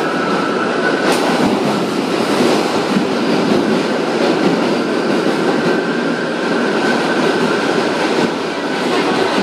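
R62A New York City subway car running through a tunnel, heard from inside the car: a steady, loud rumble of wheels on rail with a faint high whine throughout and one sharp click about a second in.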